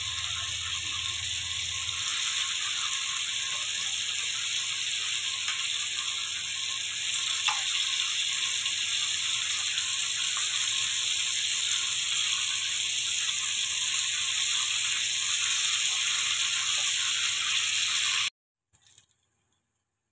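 Bacon strips frying in hot oil in a pan: a steady sizzling hiss with fine crackling. It cuts off suddenly about two seconds before the end, leaving a couple of faint clicks.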